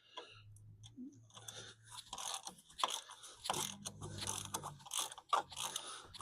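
A hand ratchet wrench clicking in a run of short, irregular strokes as nuts on a car wheel are tightened.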